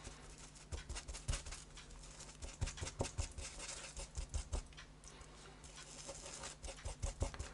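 Small paintbrush dabbing and wiping on paper towel, making light, irregular taps and scratches, over a faint steady low hum.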